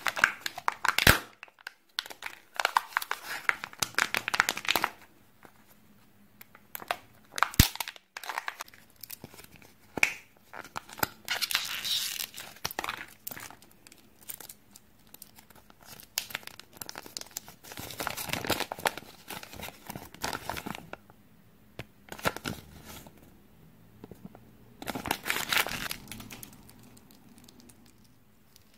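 Hands opening Kinder Surprise plastic toy capsules and handling the small toys and their wrappers: on-and-off crinkling and tearing of thin packaging, with quiet gaps between handfuls. Two sharp clicks stand out, about a second in and again about 7.5 seconds in.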